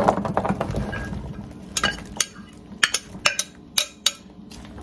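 Chopped squash, zucchini and onion tumbling from a glass bowl into a pan of hot butter, then a string of sharp clicks and knocks as a plastic spatula scrapes and taps the last pieces out of the glass bowl.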